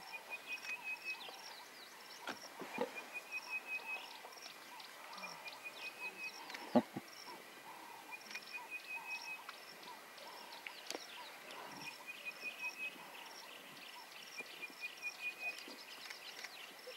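Small wild creatures calling: a fast, even trill of notes repeated about six times, every two to three seconds, over scattered short chirps. A single sharp knock about seven seconds in.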